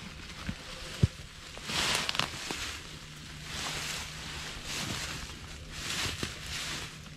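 Footsteps and rustling through leaf litter and undergrowth, coming in uneven swishing swells, with one sharp click about a second in.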